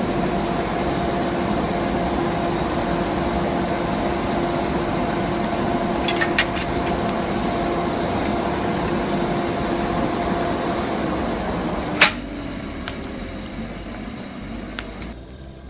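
Coal forge's air blower running with a steady humming rush while the steel heats in the fire. About eleven seconds in the hum dies away, followed by a sharp metallic clank, and the rushing sound fades.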